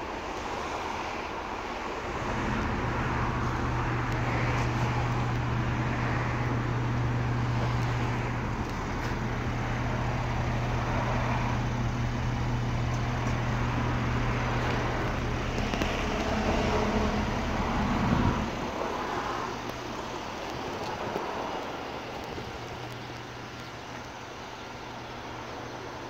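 Street traffic under a steady low hum that stops abruptly about 18 seconds in, leaving only the traffic.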